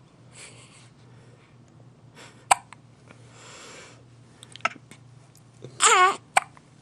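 Newborn baby hiccuping: a sharp hiccup about two and a half seconds in and another a couple of seconds later, then a brief wavering squeak from the baby near the end.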